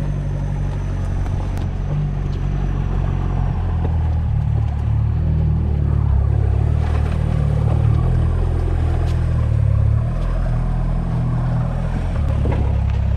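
Diesel four-wheel-drive engine running at low revs under load while crawling up a rocky dirt track, a steady low drone that pulls harder through the middle of the climb and then eases off.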